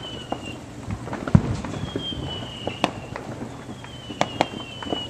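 Distant fireworks and firecrackers popping and banging at irregular intervals, the loudest bang about a second and a half in. Between them come several thin high whistles, each sliding slightly downward in pitch over about a second.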